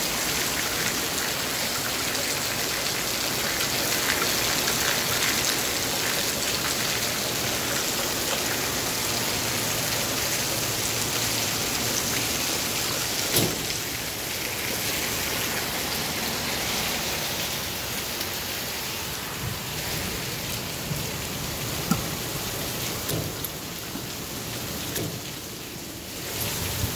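Steady rush of heavy rain and runoff: water gushing from a downspout onto concrete and rain falling on a gas station canopy, a little quieter after about halfway. Two sharp taps stand out, about halfway and about two-thirds of the way in.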